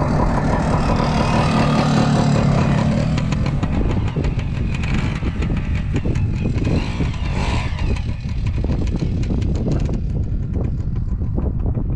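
Kawasaki KT250 two-stroke single-cylinder trials bike engine running while being ridden, pulling steadily for about the first three seconds, then easing off and running unevenly. Many short knocks and rattles are heard over the engine.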